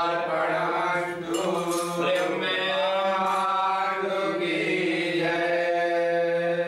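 Male priests chanting Vedic Sanskrit mantras in a steady recitation, the voices held on fairly level pitches that step up and down.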